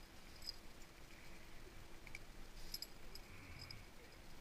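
Faint handling sounds of a pike being unhooked by hand: a few small, scattered clicks and a brief rustle of cloth and line, over a low background hum.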